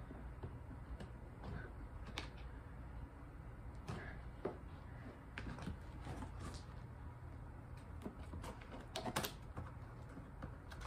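Faint, scattered clicks and scrapes of fingers and scissors working at packing tape on a cardboard box, with a few louder clicks together about nine seconds in.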